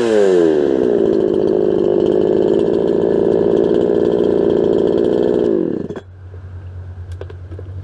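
Ported Farmertec Huztl 372XP-kit two-stroke chainsaw running unloaded, its pitch settling down from a rev into a steady high-speed run. About six seconds in the engine speed falls away abruptly to a much quieter low idle.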